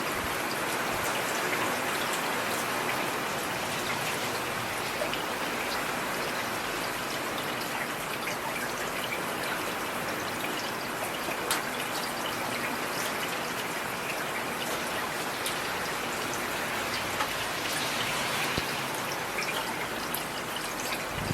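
Steady rain falling, with scattered sharp hits of single drops over an even hiss.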